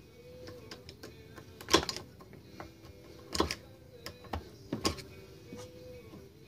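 Sharp clicks and knocks from hand work on an ATV's front drum brake during adjustment: three louder ones about a second and a half apart among lighter ticks, over faint background music.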